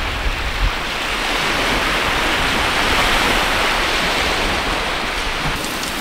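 Steady rush of waves washing on a beach, a little louder in the middle.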